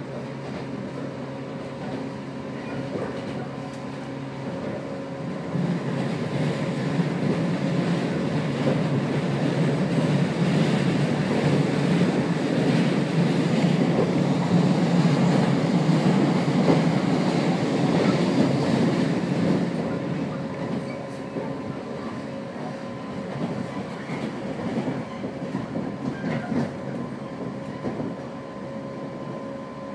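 Inside a JR 115-series electric multiple unit running along the line: a steady rumble of wheels on rails and running gear. It grows louder from about six seconds in, then eases off again after about twenty seconds.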